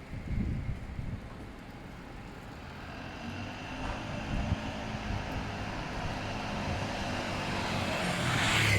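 A motor vehicle's engine growing steadily louder as it approaches, loudest near the end. There are a few low bumps in the first second.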